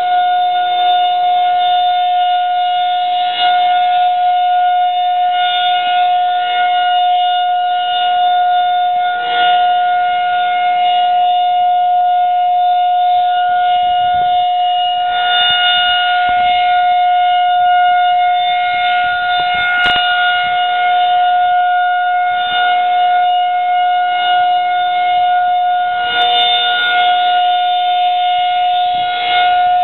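Federal Signal 2001-SRN outdoor warning siren sounding its steady 'Alert' signal: one loud tone held at a constant pitch, brightening a little about every six seconds as the rotating horn sweeps round. This steady tone is the siren's monthly test and is the same signal it gives for severe thunderstorm and tornado warnings.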